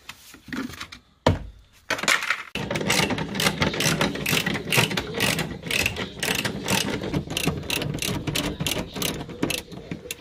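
Hand ratchet wrench clicking in a long rapid run as bolts are wound out of the Mazda RX8's interior trim and seat mounts, after a single sharp knock about a second in.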